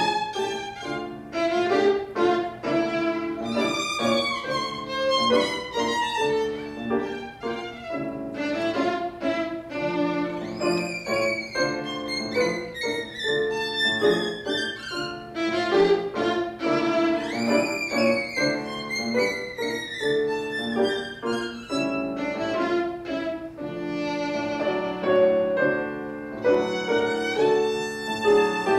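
Solo violin played live with piano accompaniment, the violin running quickly down through notes again and again in fast passages, over held lower notes.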